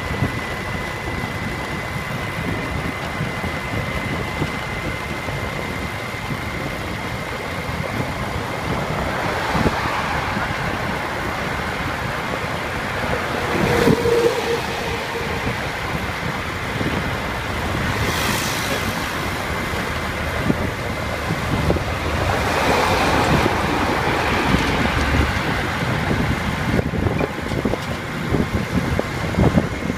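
Steady rush of wind and road noise from travelling along a highway, with passing vehicles swelling up several times, loudest about two-thirds of the way through. A thin, steady high tone runs underneath throughout.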